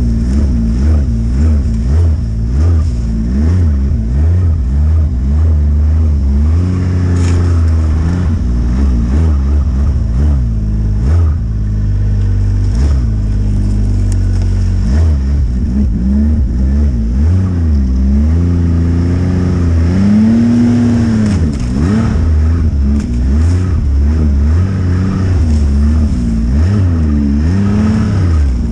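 Snowmobile engine running under way, its pitch rising and falling again and again with the throttle.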